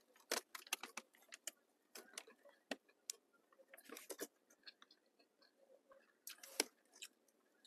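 Faint, irregular crackling clicks of a person biting into and chewing a flaky Jamaican spicy cheese patty.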